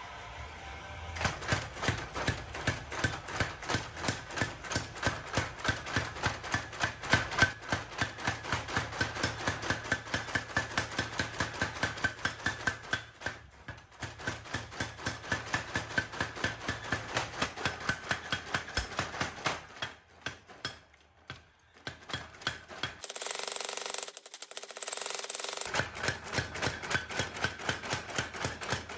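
Rapid, even hammer blows on steel, about three a second, as a ship's bearing ball is forged into a knife blank. The blows pause briefly a few times, with a short stretch of steady hiss about two-thirds of the way through, then resume.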